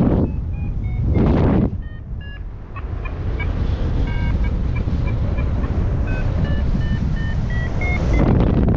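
Paragliding variometer (XC Tracer Maxx) beeping in short tones whose pitch steps upward in the second half, the vario's signal that the glider is climbing in lift. Wind rushes over the microphone throughout, in gusts that are loudest in the first second and a half and near the end.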